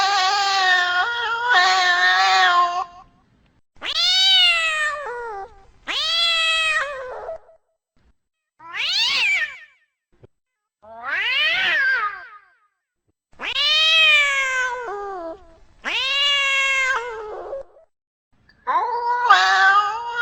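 Domestic cat meowing over and over: about eight long meows, each one to two seconds, rising then falling in pitch, with short pauses between.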